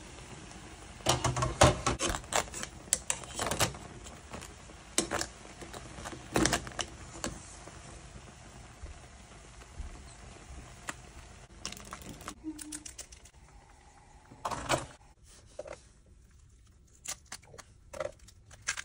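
Water boiling in a pan under clicks and clatter of metal tongs against the pan and crab shells as the crabs are turned and lifted out. The boiling stops about twelve seconds in, and a few short cracks follow near the end as the cooked blue swimmer crab shells are pulled apart.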